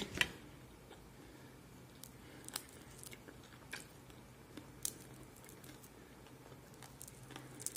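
Faint crunching and chewing as a man bites into crispy roast chicken, with scattered short sharp clicks as the crisp skin and meat are torn and bitten. A low steady hum runs underneath.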